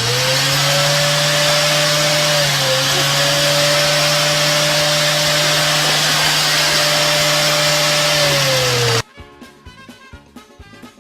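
A loud electric motor running steadily with a strong rushing hiss over a constant hum, which dips briefly in pitch under three seconds in and stops abruptly about nine seconds in.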